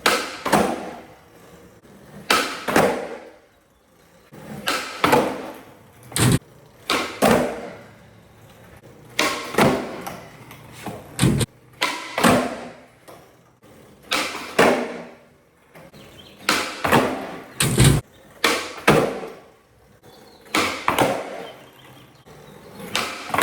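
Skateboard flip tricks on flat ground: about ten pairs of sharp wooden pops and landing slaps, the tail cracking on the ground and the board coming back down under the wheels about half a second later, with wheels rolling on pavement in between.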